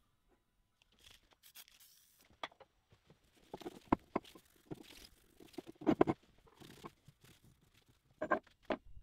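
Irregular knocks and clicks as a heavy steel milling-machine spindle is handled on a workbench, with rustling as a cloth rag is rubbed over it. The sharpest knocks come about four and six seconds in, and two more near the end.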